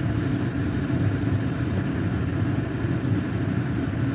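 Instant Pot electric pressure cooker venting steam through its pressure release valve, held open for a quick release: a steady rushing hiss as the last of the pressure is let out.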